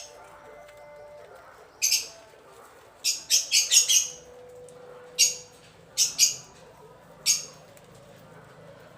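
Guinea pigs squeaking: about ten short, sharp, high-pitched squeaks, with a quick run of them about three to four seconds in.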